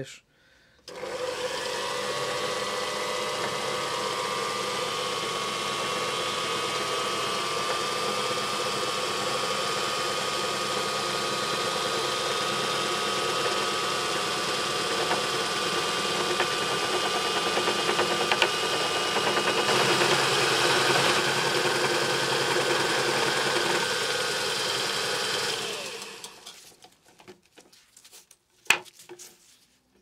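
Scroll saw running steadily with its blade cutting through a sheet of lead. It starts about a second in, comes up to speed and stops a few seconds before the end, followed by a sharp click.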